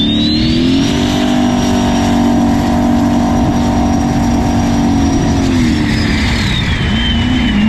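Turbocharged 5.3-litre LS V8 of a jet boat running hard: its note climbs in the first second, holds steady with a thin high turbo whine above it, then falls away about six seconds in as the throttle comes off. A steady rush of wind and water runs underneath.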